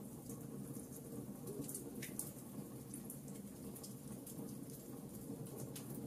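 Wood logs burning in a fireplace: a steady low rumble of the fire with scattered sharp crackles and pops, several close together about two seconds in.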